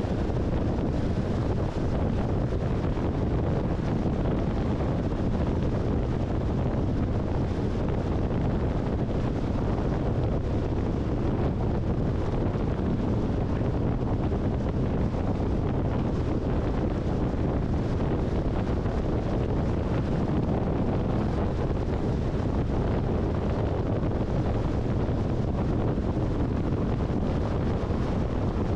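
Steady wind and road noise of a car driving at highway speed, an even rush heaviest in the low end, with wind on the microphone.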